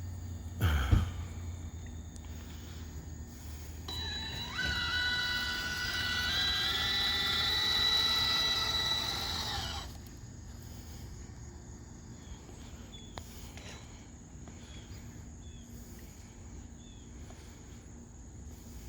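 A small electric motor whines for about six seconds, gliding up in pitch as it spins up, holding steady, then stopping.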